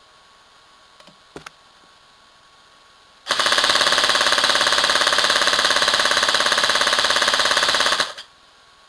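Airsoft electric gun (AEG) firing one full-auto burst of about five seconds straight into the microphone, at about 20 rounds per second, starting about three seconds in. The battery is only about half charged.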